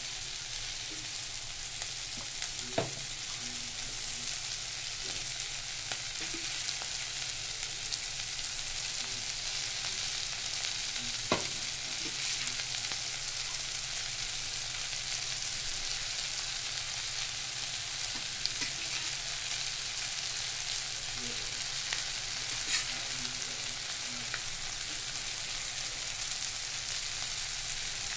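Food sizzling as it is stir-fried in a steel kadai, a steady hiss, with a slotted metal spatula stirring and clinking sharply against the pan a few times.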